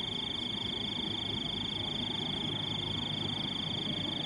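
A frog's high-pitched continuous trill, unbroken until it cuts off near the end, with a fainter pulsing call above it.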